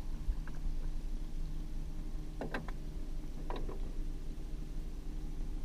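Small boat outboard motor running steadily at trolling speed, a low even hum. Two brief sharp sounds stand out, about two and a half and three and a half seconds in.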